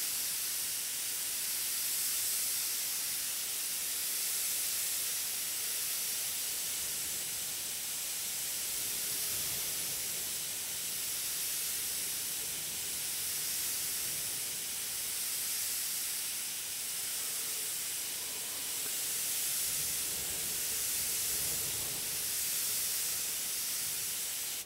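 Gravity-feed airbrush spraying Indian ink: a steady hiss of compressed air from the nozzle, swelling and easing slightly.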